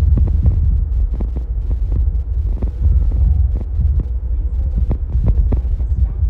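Underground airport people-mover train running through its tunnel, heard from inside the car: a loud, steady low rumble with irregular knocks and clacks several times a second.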